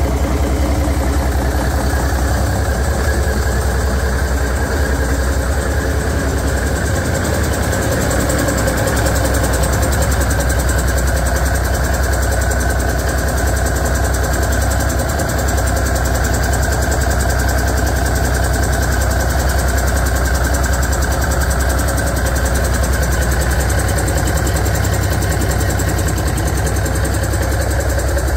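1986 Cummins Small Cam NH/NT 855 14-litre six-cylinder diesel engine idling steadily during its test run.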